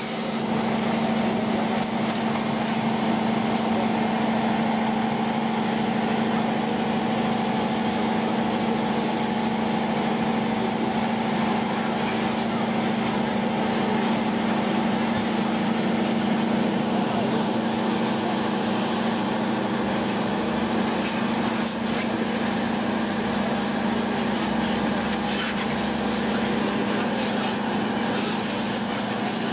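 A steady engine drone with a strong low hum and no change in pitch, with faint voices underneath.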